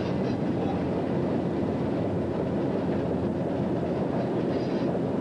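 Train of passenger cars rolling around a curve during switching: a steady noise of wheels running on the rails.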